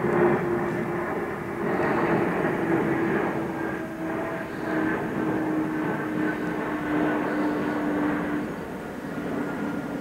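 Fixed-wing aircraft engine drones steadily, its note slowly sinking in pitch as it passes.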